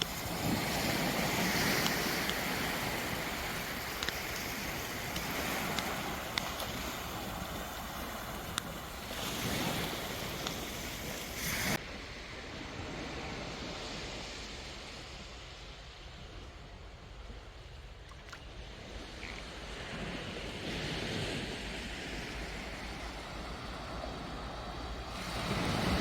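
Sea waves washing onto a beach, the surf swelling and ebbing every few seconds, with low wind rumble on the microphone. The hiss turns duller about halfway through.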